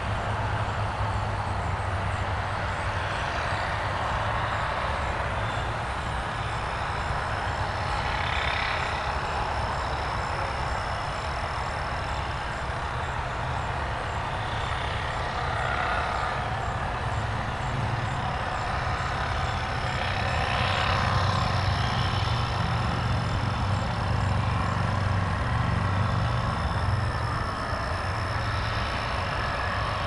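Steady rumble of road traffic from cars and trucks, swelling louder as heavier vehicles pass, most strongly about two-thirds of the way through.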